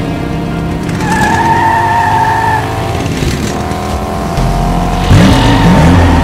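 Car tyres squealing in long high-pitched squeals, then a vehicle engine revving hard and repeatedly, louder, near the end.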